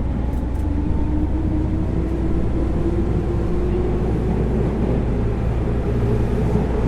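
JR 205 series electric train heard from inside the car while running: the MT61 traction motor with its externally mounted cooling fan gives a steady whine that rises slightly in pitch over the first few seconds and then holds, over a continuous rumble of wheels on track.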